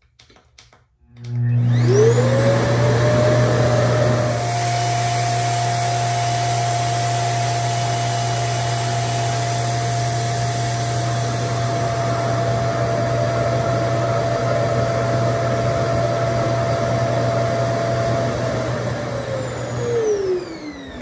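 RevAir reverse hair dryer's suction motor switched on with a few clicks, spinning up with a rising whine about a second in, then running loudly and steadily as it sucks a section of hair into its tube. Near the end it winds down with a falling whine.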